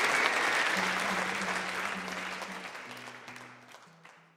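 Audience applause at the end of a live song recording, fading out steadily until it is nearly gone, with a few quiet held notes underneath from about a second in.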